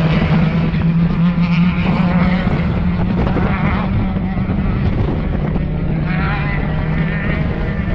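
Off-road race vehicles' engines running hard, their pitch rising and falling several times as they rev past, over a steady low drone.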